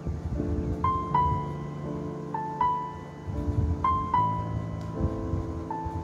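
Background music: a slow melody of single notes over held chords.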